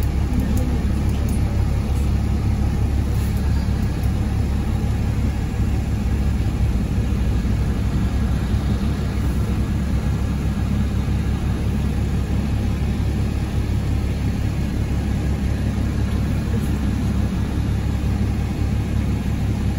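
GolAZ-AKA-5225 city bus running, heard from inside the cabin: a steady low engine and road rumble.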